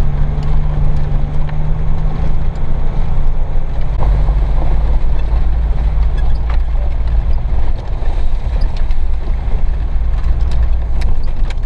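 Four-wheel-drive rally car's engine running steadily under load, heard from inside the cabin, with scattered knocks and rattles as the car drives over a rough dirt track.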